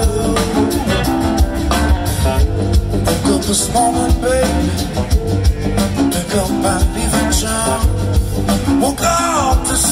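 A live blues-rock band playing, with electric guitars, drums and a horn section, and a man singing lead. Heard from the audience.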